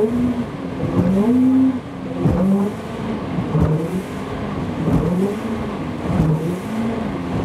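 Two-stroke Johnson outboard motor on a small speedboat, its throttle pumped on and off so the engine note climbs and drops again about every second: bunny hops to lift the bow. Short thumps come between the revs as the hull comes down on the water.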